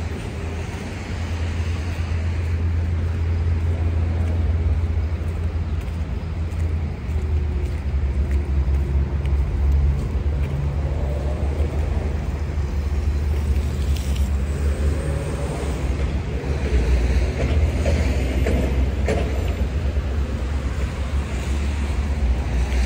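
Road traffic: motor vehicles passing with a steady low rumble. Wavering engine notes from passing vehicles come through in the second half.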